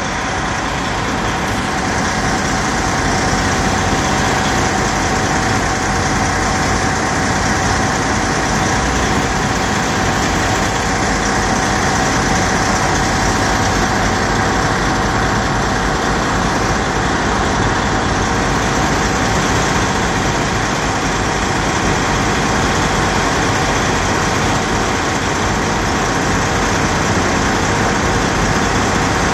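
Semi-truck diesel engine idling steadily, with a thin steady high tone running through it.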